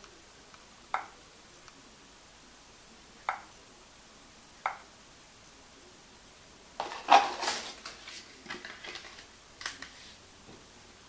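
Three short sharp clicks a second or two apart from taps on the smartphone's touchscreen, then a few seconds of clattering and rustling as the phone, its box and its packaging are handled.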